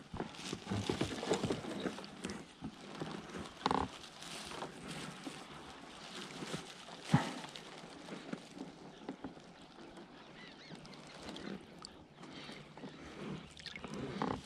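Close handling noises from fishing gear as the live bait is changed on a set line: scattered rustling and small clicks, a brief squeak about four seconds in, and one sharper knock about seven seconds in.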